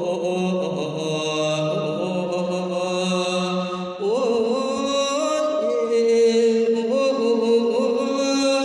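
Isan thet lae sermon chant: a sung voice holding long notes that glide and turn between pitches, over a steady low drone.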